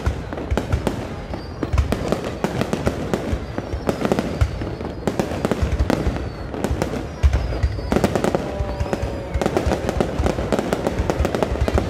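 Fireworks display going off without pause: many shells bursting in quick succession, a dense run of bangs and crackling, with faint falling whistles now and then.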